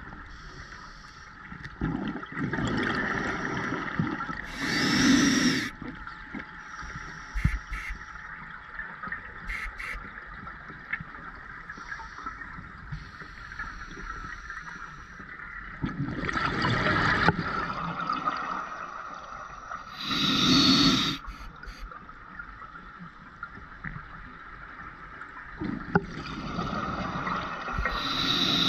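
Scuba diver breathing through a regulator underwater: bubbling exhalations come in bursts every few seconds, with quieter hissing inhalations between them.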